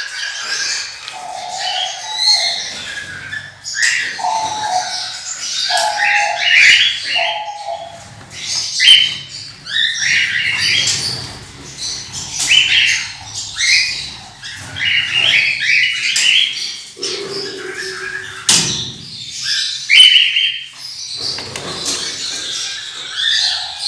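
Pet parrots chirping and squawking continually, many short overlapping calls, with a few sharp knocks or flutters among them.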